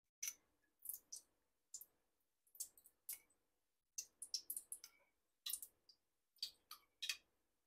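Faint, irregular clicks of a metal spoon against a metal kadai as spoonfuls of refined oil are poured in.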